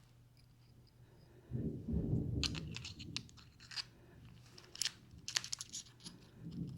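Small clicks and scrapes of hands and small metal parts as a ball bearing is worked into a fishing reel's replacement handle knob, with a low rumble of handling about a second and a half in.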